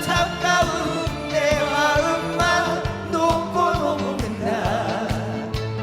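Trot song with band backing: a steady beat under held chords and a wavering vibrato melody line, in the gap between sung lines.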